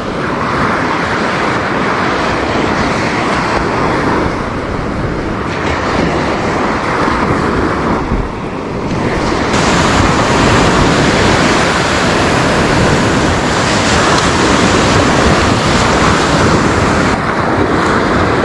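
Ocean surf rushing and breaking on the beach, with wind buffeting the microphone. The rush grows louder and brighter about halfway through.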